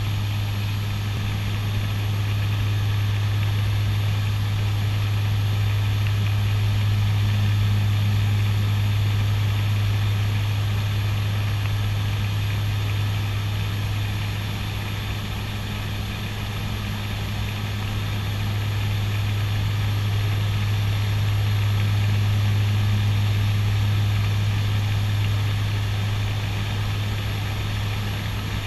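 Cockpit noise of a CASA NC-212-200 Aviocar in level flight: its twin Garrett TPE331 turboprops and propellers give a steady low drone over a constant hiss.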